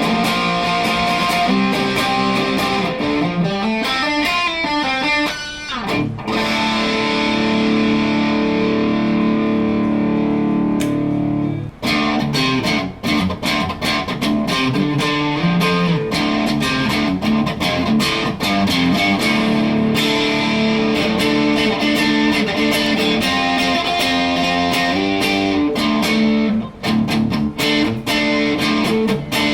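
PRS 408 electric guitar played with light overdrive, chords and picked lines, with a brief stop about twelve seconds in.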